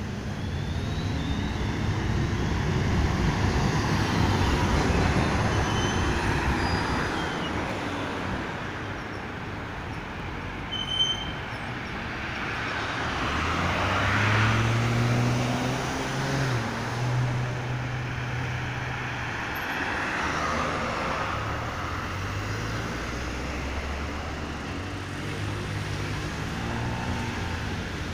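Road traffic at a busy junction: cars driving past one after another, swelling and fading as each goes by. Around the middle a vehicle's engine hums steadily for several seconds. A brief sharp sound comes about eleven seconds in.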